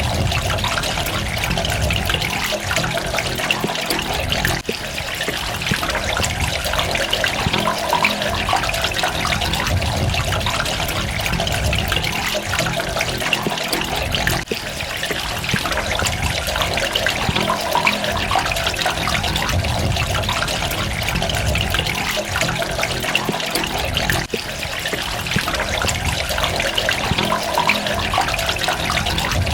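Water running and trickling steadily, with a dense spatter of small droplets splashing.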